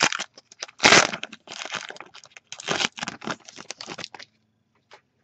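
Foil wrapper of a trading card pack torn open and crinkled: a run of crackles and rustles, the loudest about a second in, dying away after about four seconds.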